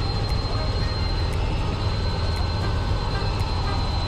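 Helicopter in flight heard from inside the cabin: a steady low rotor and engine rumble with a thin high whine above it.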